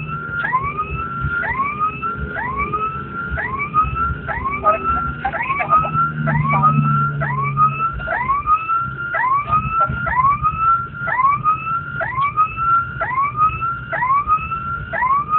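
Emergency-vehicle siren sounding in quick, repeated rising sweeps, about one and a half a second, heard from inside the moving vehicle. The vehicle's engine hum and road noise run beneath it.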